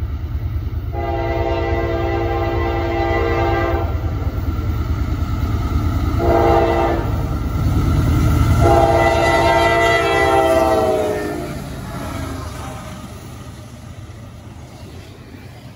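CSX GE Dash-9 diesel locomotive leading a double-stack freight train, sounding its horn for a grade crossing: a long blast, a short one, then a long one whose pitch drops as the locomotive passes. Beneath the horn runs the low rumble of the engine and the train on the rails, fading away near the end.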